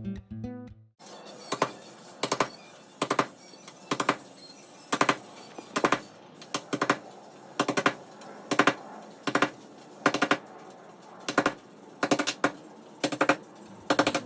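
Sharp metallic knocks in quick short clusters, one or two clusters a second, as rivets are busted out of a school bus's sheet-metal body.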